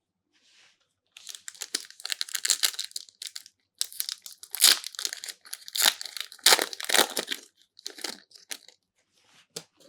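Booster pack wrapper being torn open and crinkled by hand, a dense crackling that starts about a second in and runs for several seconds, ending with a few light clicks.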